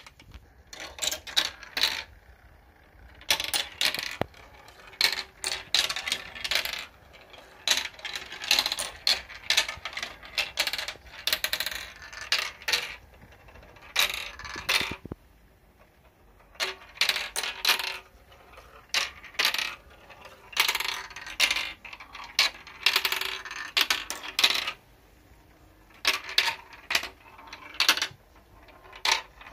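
Glass marbles rolling and clattering down a plastic marble run, clicking against the tube joints and chutes and dropping into plastic catch bowls. The clatter comes in bursts of rapid clicks with short pauses between runs.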